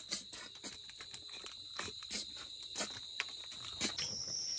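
Steady high-pitched trill of crickets, jumping to a higher pitch near the end, under irregular clicks and slurps as cooked river snails are picked off a steel plate and sucked out of their shells.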